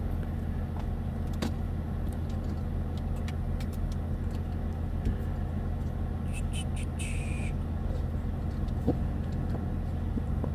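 Newly plugged-in Mars Hydro oscillating grow-tent fan running with a steady motor hum. A few light clicks sound, and about six seconds in there is a short run of high chirps.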